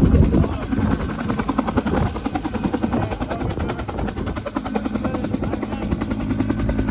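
Rescue helicopter running close by, its rotor blades chopping in a fast, even rhythm, loudest in the first second.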